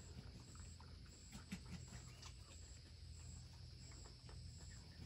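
Near silence: faint background with a steady high-pitched drone and a few faint clicks.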